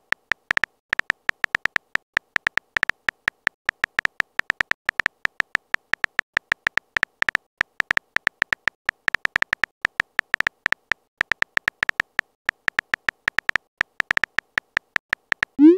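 Phone keyboard key-tap sounds, one short high click for each letter typed, in a quick irregular run. Right at the end a rising message-send tone begins.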